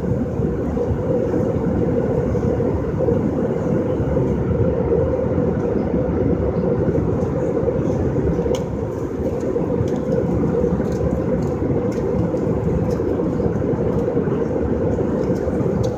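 Airliner cabin noise in flight: a steady, loud drone of engine and airflow with a constant hum, and a few faint clicks.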